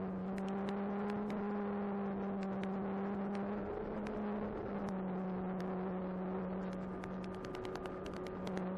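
Electric motor and propeller of an E-flite Apprentice 15e RC trainer running at a steady cruise, a constant whir with slight shifts in pitch, heard from the plane in flight. Scattered faint clicks and crackles run through it and grow more frequent near the end.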